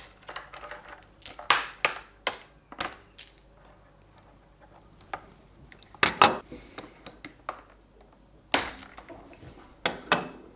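Plastic keycaps being prised off a Logitech G613 mechanical keyboard with a knife and dropped into a container: scattered sharp clicks and short clatters, with pauses between.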